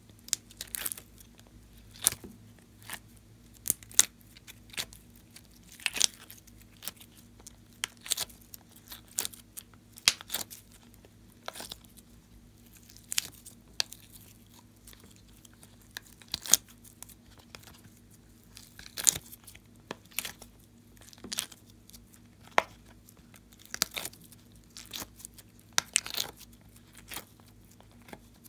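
Soft slime and clay being pressed and peeled out of a silicone mould: irregular short sticky pops and crackles, sometimes in quick clusters, with gaps between.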